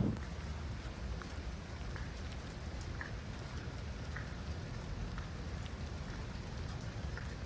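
Steady rain falling, with scattered drops ticking on a hard surface.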